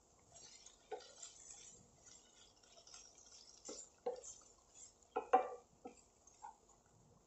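Wooden spatula stirring sliced banana stem in a nonstick pan, with several short scrapes and knocks against the pan and a faint sizzle of frying underneath. The loudest knocks come a little after five seconds in.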